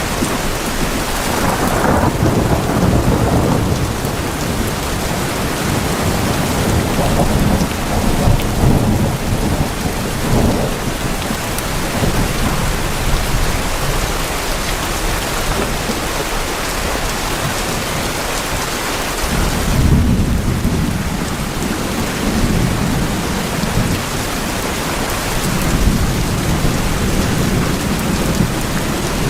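Steady heavy rain falling on tin roofs, with several long, low rolls of thunder swelling and fading.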